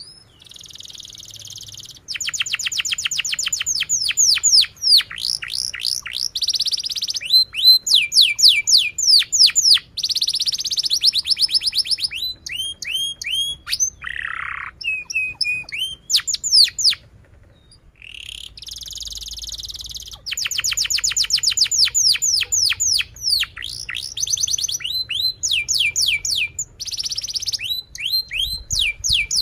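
Domestic canary singing a long song: fast trills of rapidly repeated descending notes alternate with buzzy rolls and short chirps, broken by a brief pause about two-thirds of the way through.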